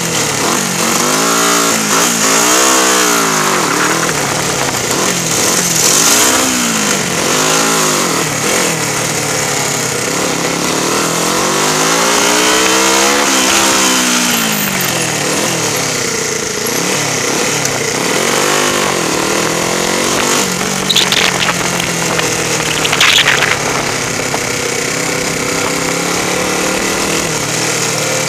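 Race-prepared 1977 Honda 125 twin's small parallel-twin four-stroke engine revving up and down at low road speed, its pitch rising and falling with each throttle opening, then one longer rise and fall about halfway through. Two brief sharp rattles come about three-quarters of the way through.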